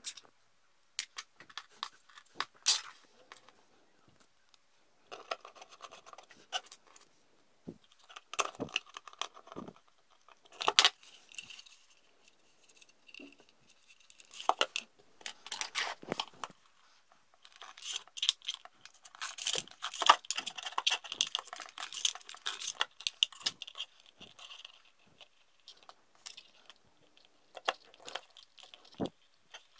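Close handling noises of a small 3D-printed plastic model boat and its wiring: scattered clicks and taps as the hull is picked up and moved, with a denser stretch of scratchy rustling about two-thirds of the way through as wires and gold bullet connectors are fitted together.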